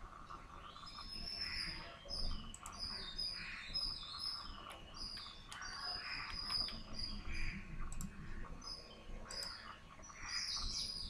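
Small birds chirping over and over: short, high, repeated chirps with softer lower calls between them, and a few faint clicks.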